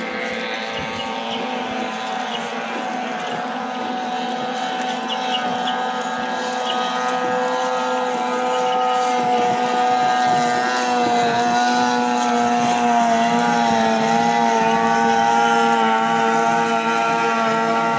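15 hp outboard motors on racing longboats, running in a steady whine that grows louder about halfway through, its pitch wavering.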